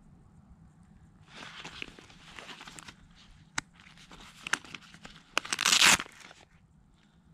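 Nylon belt pouch rustling and clicking as it is handled, then its hook-and-loop flap ripped open with a loud tearing rasp about five and a half seconds in.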